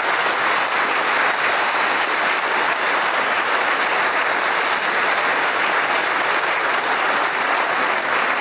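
Audience applauding steadily, many hands clapping at once at an even level.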